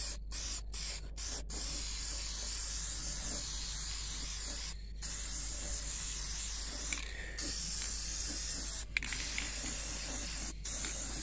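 Aerosol can of black spray paint hissing: a few quick short bursts at first, then longer steady sprays broken by brief pauses.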